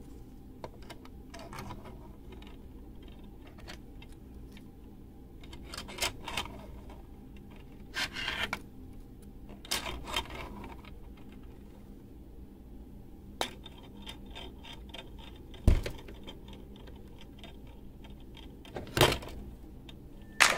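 3D-printed plastic target plates clicking and clacking against each other and the frame's rod as they are handled and hung, in scattered sharp knocks with a heavier knock about three quarters of the way through and a double clack near the end.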